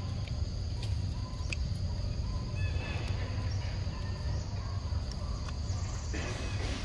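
Outdoor ambience: a steady low rumble like wind buffeting the microphone, with faint bird calls and a few soft ticks over it.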